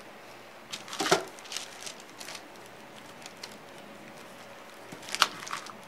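Light handling noises as a wax-coated wooden panel is lifted and shifted about on the work surface: a few short taps and rustles, the sharpest about a second in and near the end.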